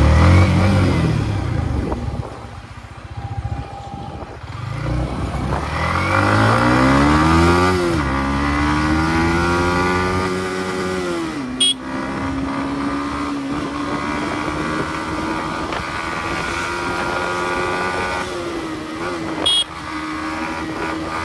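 Yamaha MT-15's single-cylinder engine pulling away: its pitch climbs as it accelerates, drops sharply at the gear changes, and then holds steady as the bike cruises. Two short sharp clicks, one about halfway and one near the end.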